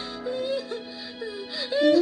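Music: a melody with a wavering, voice-like lead line over a held low note.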